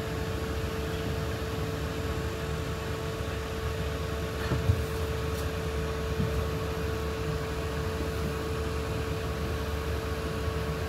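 Steady low rumble of a Boeing 777-300 airliner's jet engines passing high overhead, with a constant hum under it and a single knock about halfway through.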